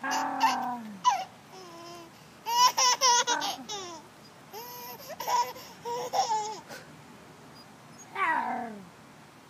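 A baby laughing, squealing and babbling in short high-pitched bursts, with a quick run of giggles about three seconds in and a falling squeal near the end.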